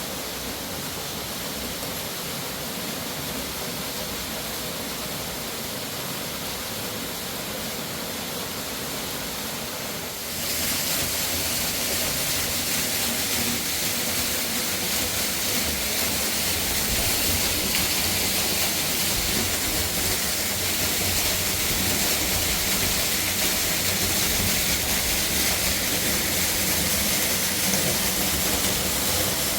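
Steady rush of a fast-flowing mountain river. About ten seconds in it becomes suddenly louder and brighter, then holds steady.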